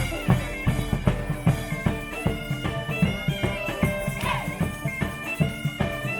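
Bagpipe and drum music: a bagpipe melody of held notes moving from pitch to pitch over a quick, steady drum beat.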